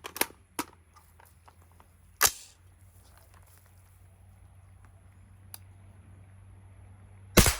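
Two rifle shots about five seconds apart, the second louder with a short echo after it, and a few faint clicks in the first second.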